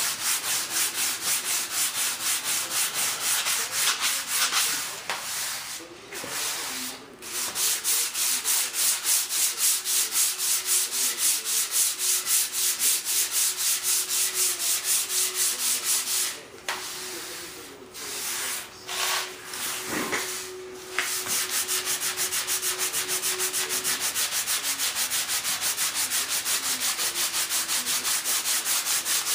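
Sandpaper rubbing back and forth over an RC jet model's wing in even strokes, about three a second, stopping briefly twice. The wing surface is being smoothed flat before it is fibreglassed.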